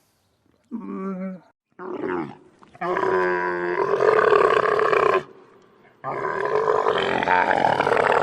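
Camel moaning: two short groans, then two long drawn-out moans of about two and a half seconds each, pitched but rasping.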